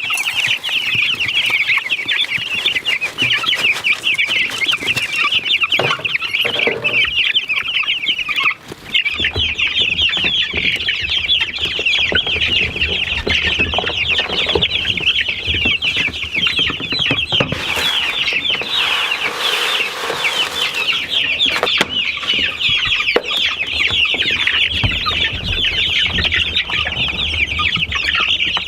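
A flock of young meat chickens peeping continuously, many high, short chirps overlapping. There is a brief break about eight seconds in and some rustling around eighteen to twenty seconds.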